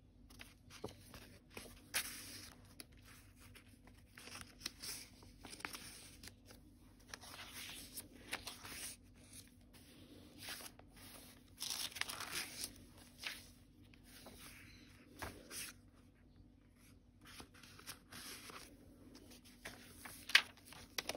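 Paper pages and inserts of a handmade junk journal being turned and handled: irregular soft rustling and crinkling of paper, with a sharper click near the end.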